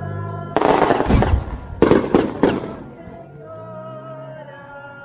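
Firecrackers going off: a dense crackling burst about half a second in, then four sharp bangs in quick succession. Under and after them, a group is singing a religious song.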